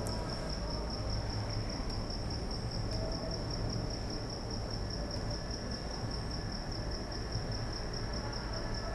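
A cricket chirping continuously: a high, even, rapidly pulsing trill over a low steady hum.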